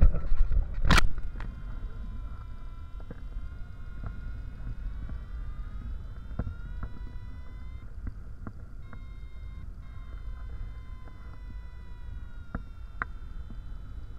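Wind rumbling on the microphone in flight, with a steady tone of several pitches that slowly slides up and down. Rustling and a sharp knock in the first second or so, then a few faint clicks.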